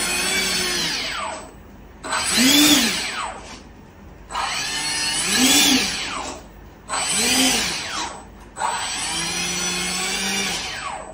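Small electric motor of a foam RC plane whirring in five bursts of a second or two each, driven from the transmitter while the thrust-vectoring system is tested. In most bursts the pitch rises and then falls as the throttle is pushed up and let back; the first and last hold steadier.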